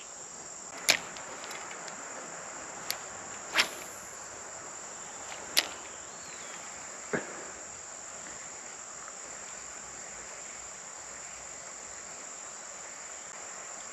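Steady high-pitched drone of insects, crickets by their sound, with five short sharp clicks or knocks spread over the first seven seconds.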